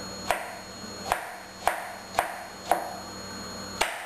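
Sharp kitchen knife chopping tomatoes finely: six crisp chops, roughly two a second, each with a short ring.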